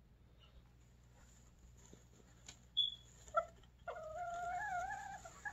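Serama bantam chicken calling: a short high chirp and a brief lower note, then a drawn-out, wavering call of about a second and a half.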